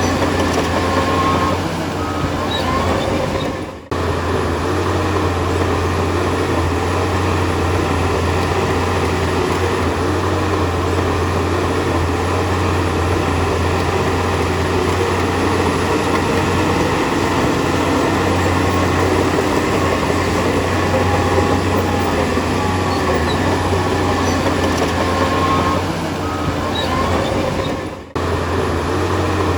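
Heavy diesel earth-moving machine running steadily under work, a deep continuous rumble. The sound drops out briefly twice, about four seconds in and near the end.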